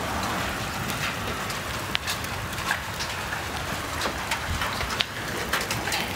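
Hailstones falling in a steady downpour, with many separate sharp cracks as individual stones strike hard surfaces.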